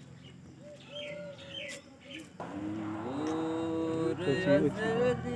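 Small birds chirping outdoors. About halfway through the sound cuts suddenly to a louder man's voice holding long notes.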